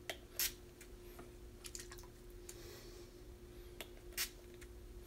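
Makeup setting spray misted from a spray bottle onto the face in short spritzes, the two loudest about half a second in and about four seconds in, with fainter ones between.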